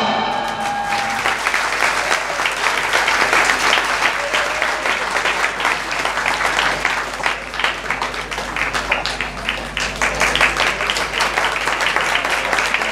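Audience applauding, many hands clapping steadily, as the dance music ends in the first second.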